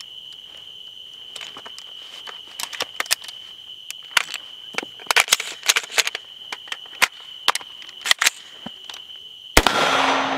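Sharp metallic clicks and clacks of an AR-style rifle being handled while a malfunction is cleared: bolt, charging handle and magazine work, coming in quick clusters, over a steady high tone. Near the end a sudden loud burst of noise lasts about a second.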